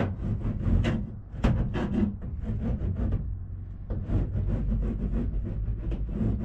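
Irregular knocks, taps and clatter over a low rumble: handling and work noise in the bare sheet-metal cargo area of a van.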